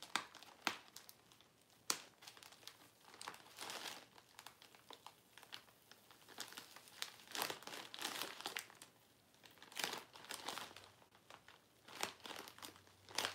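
A plastic shipping mailer being handled and picked at, crinkling in irregular spurts with sharp clicks as a label is peeled off it.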